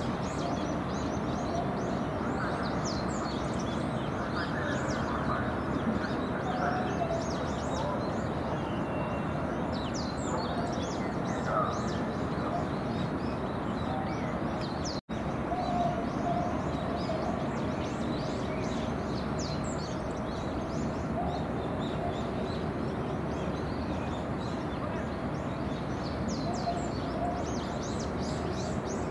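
Many small birds chirping in quick, high twitters over a steady background hiss of outdoor harbour ambience, with a brief dropout about halfway.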